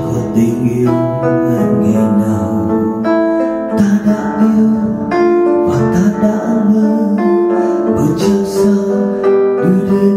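A slow ballad played with guitar accompaniment, continuous held notes throughout.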